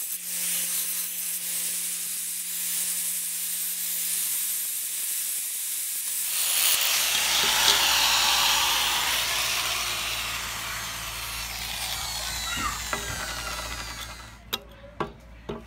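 Electric angle grinder with an abrasive disc grinding a steel cleaver blade: a steady motor whine over the hiss of the disc on the metal. About six seconds in the sound turns coarser and noisier, fades near the end, and a few sharp clicks follow.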